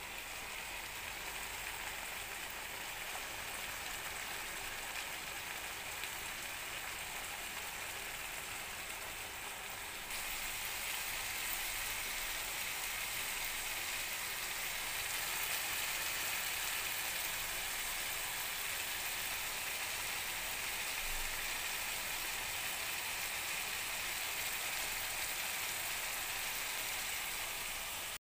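Cabbage sauce with zucchini, mackerel fish, onion and red bell pepper sizzling and simmering in a stainless frying pan on a gas burner, a steady rain-like hiss that grows a little louder about ten seconds in.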